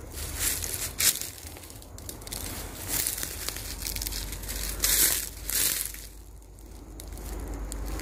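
Footsteps crunching through dry leaf litter and twigs: irregular crackling crunches about a second apart, easing off briefly near the end.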